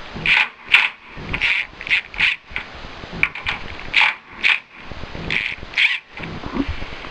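Hand tool backing out the screws that hold a Jaguar E-Type's boot lid to its hinges: short rasping, clicking strokes, mostly in pairs, repeating every second or so.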